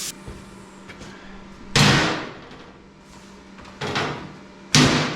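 A cutting tool's steady hiss stops at the start. Then come three heavy blows on steel, each with a short metallic ring, about two seconds in, a lighter one near four seconds and another near the end.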